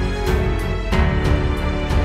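Background music: sustained chords over a steady drum beat.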